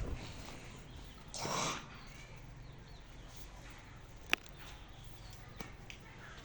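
Dog and goat at play: a short rough noise about a second and a half in and a single sharp click a little past four seconds, over a low steady background.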